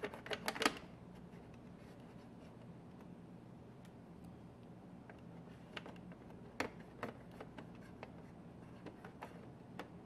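Wooden toothpick picking and scraping in the gaps around a Bosch dishwasher's plastic push buttons to clear sticky food build-up: a quick run of sharp clicks at the start, then scattered light clicks and scratches in the second half.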